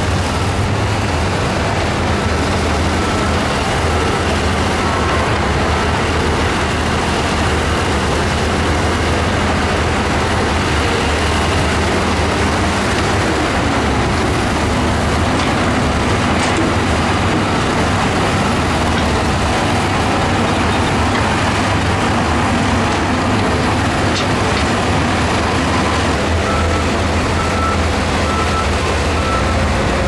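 Diesel engines of earthmoving machines, a crawler bulldozer and a wheel loader, running steadily. A reversing alarm beeps in short, evenly spaced tones during the last few seconds.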